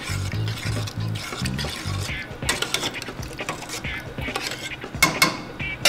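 A spoon stirring a thick, wet mix of beans, corn and diced tomatoes in a stainless steel stockpot, scraping and clacking against the pot's sides and bottom, with a few sharp knocks, the sharpest about five seconds in.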